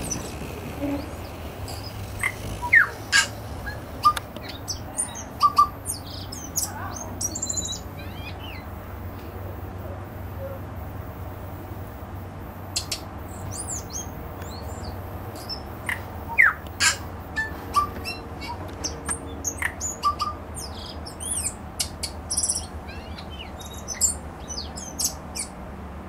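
Tui singing: a scattered run of sharp clicks, short whistles and high chirping notes in two spells, with a lull of a few seconds between them. A steady low rumble runs underneath.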